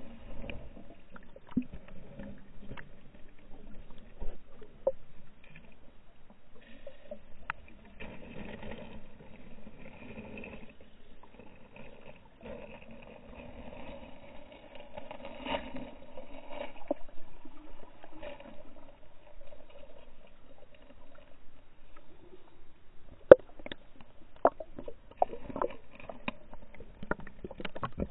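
Creek water heard through a camera held half-submerged at the surface: muffled lapping and gurgling with scattered clicks and knocks, and a run of sharper knocks near the end.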